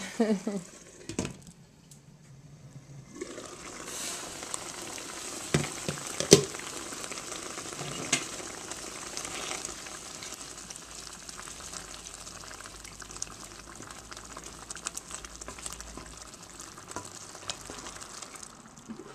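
A refrigerator door thuds shut about a second in. From about three seconds in, canned spinach with onions and garlic sizzles as it simmers in its juices in a stainless steel sauté pan, stirred with a wooden spoon that scrapes and knocks against the pan now and then.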